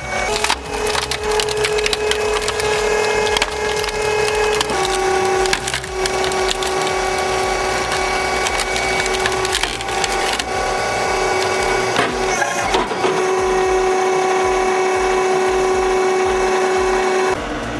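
A wood-processing machine running with a steady whine that steps down in pitch a few seconds in, while wood cracks and splinters repeatedly.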